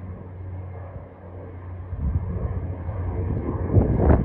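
Engine noise of an airliner climbing out after takeoff: a low rumble with a steady hum, growing louder about halfway through and turning rough and crackly near the end.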